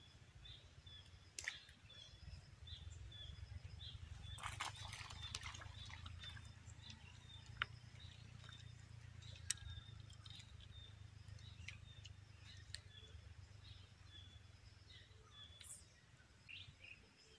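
Quiet outdoor ambience: faint short bird chirps repeating over a low steady rumble, with a few soft clicks and a brief rustle of handling about four to five seconds in.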